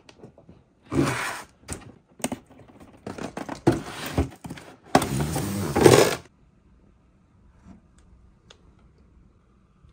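Cardboard toy box being opened by hand: the packaging scrapes, slides and rustles in a string of bursts for about five seconds, then only a few faint clicks.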